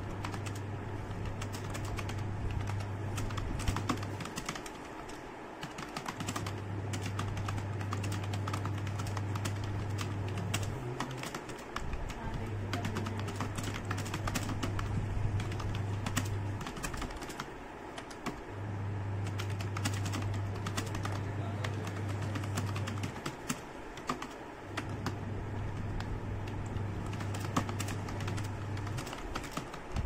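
Keystrokes on a computer keyboard, typed fast and continuously. Under them is a low hum that switches on for about four seconds, then off for a second or two, repeatedly.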